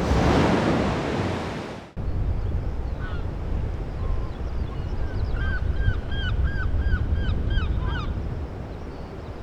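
Waves washing ashore with wind on the microphone, broken by a sudden cut about two seconds in. Over the wind and surf that follow, a duck calls in a quick run of about nine short quacks, roughly three a second, in the middle of the stretch.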